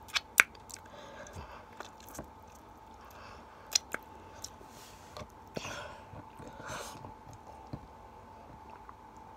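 Close-up mouth sounds of someone eating Pringles potato crisps: chewing and lip-smacking, with a few sharp clicks near the start and about four seconds in, and finger-licking.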